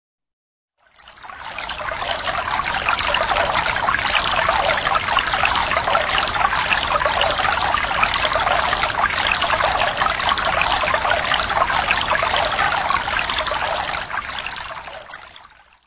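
Running water like a flowing stream, a steady trickling rush that fades in about a second in and fades out near the end.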